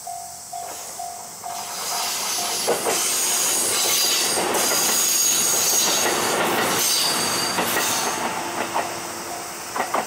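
Japanese level-crossing warning bell dinging in quick repeats, then a JR Kururi Line diesel railcar passing over the crossing, its wheels clacking over the rail joints. The train noise swells over the bell for several seconds in the middle and fades near the end, leaving the bell ringing again.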